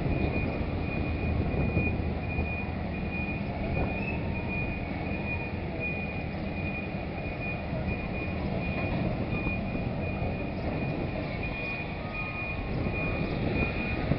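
Low, steady rumble of a large ro-ro ferry's engines as it comes slowly into harbour, easing off about halfway through, mixed with a rushing noise. A thin high-pitched beeping tone pulses throughout.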